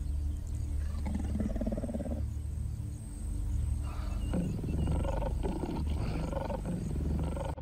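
Lion growling and snarling in two stretches: a short one about a second in, and a longer, louder one from about four seconds in.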